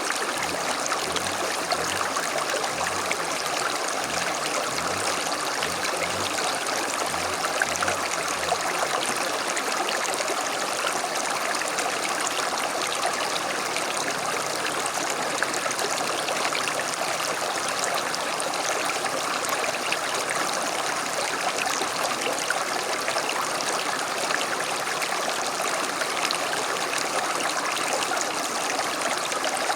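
Small creek flowing steadily: a continuous, even rush and babble of running water.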